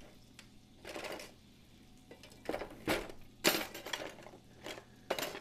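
Metal kitchen utensils clattering in a drawer as a hand rummages through it for a spatula: a run of separate clinks and clanks, the loudest about three and a half seconds in.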